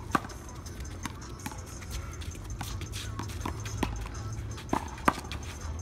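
One-wall handball rally: the ball is slapped by hand and bounces off the wall and court, giving a string of sharp smacks at uneven intervals. The loudest come just after the start and twice near the end, over a steady low rumble.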